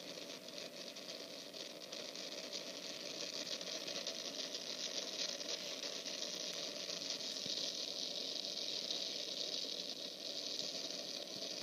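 Strong wind blowing as a steady hiss, slowly growing louder.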